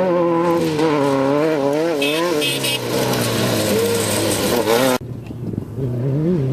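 Off-road race vehicle engines at high revs, the pitch rising and falling every half second or so as the throttle is worked. About five seconds in the sound cuts abruptly to another engine, lower and steadier.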